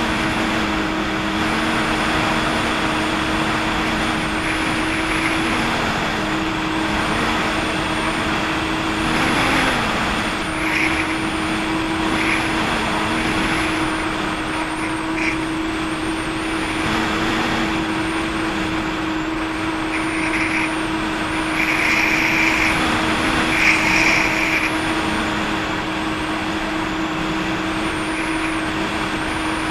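Jet ski engine running steadily while under way, over the rush of water, with a few brief louder hisses now and then.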